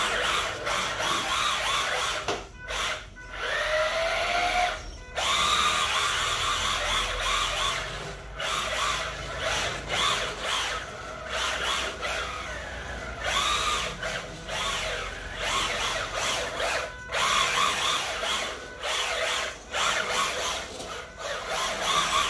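Small electric motor and gear drive of an RC drift car whining in throttle bursts, rising in pitch as it speeds up, with a few short pauses where the throttle is let off.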